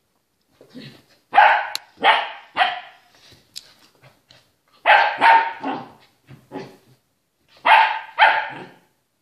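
White puppy barking at a brush, in three bursts of two or three sharp barks, with a few softer barks between.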